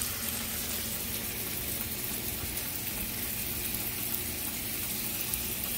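Meatballs frying in hot oil in a pan: a steady sizzle with fine crackling.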